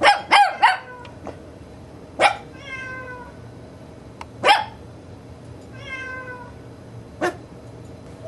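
Recorded cat meows played as a sound effect through computer speakers: three quick meows right at the start, then a single call about every two and a half seconds.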